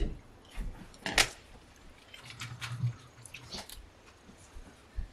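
Eating sounds: a bite into a perilla-leaf wrap of fried rice and chewing, with scattered small mouth clicks and one sharp click about a second in. A brief low hum near the middle.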